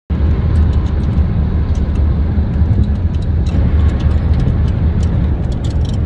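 Steady low rumble of road and wind noise inside a car driving at speed, with scattered faint ticks.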